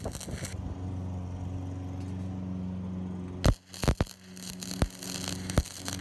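Flux-core welding arc on an exhaust pipe from a Harbor Freight Titanium Flux 125 welder: crackling and sputtering, then stopping about half a second in. Under a steady low hum, sharp pops come from about three and a half seconds in as the arc strikes in short stutters, and the crackle starts again near the end.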